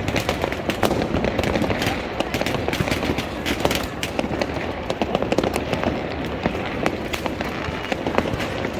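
Fireworks and firecrackers going off in quick, irregular succession: many sharp bangs and crackles over a constant rumbling din.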